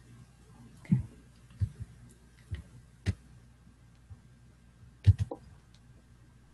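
Scattered sharp clicks and taps of a computer being worked, about eight in all at uneven intervals, the loudest a quick run of three about five seconds in.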